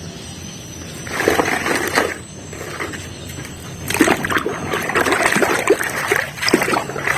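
Water splashing and sloshing as plastic toy vehicles are washed by hand, with small knocks of plastic. It comes in two spells: one about a second in, and a longer, louder one from about four seconds on.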